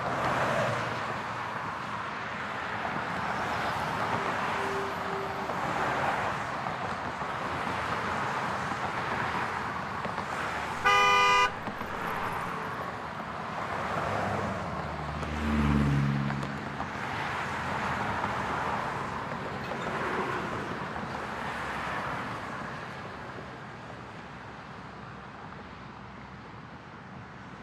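Steady road noise inside a moving car in city traffic, with one short car-horn blast, the loudest sound, about eleven seconds in. A few seconds later a low engine note swells and fades.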